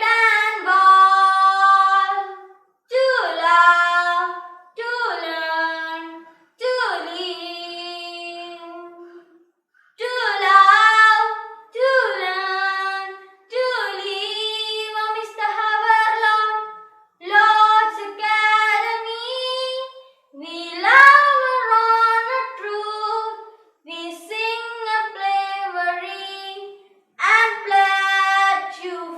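Children singing a school anthem unaccompanied, in short sung phrases with brief gaps for breath between them.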